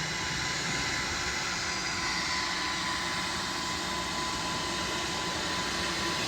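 Private jet's turbofan engines running as the jet arrives: a steady rushing noise with a thin, constant whine through it.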